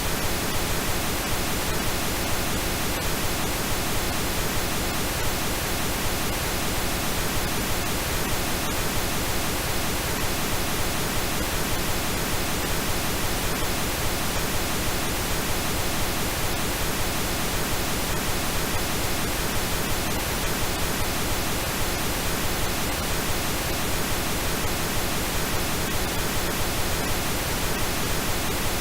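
Steady computer-generated pink noise: an even, unchanging hiss spread across all pitches.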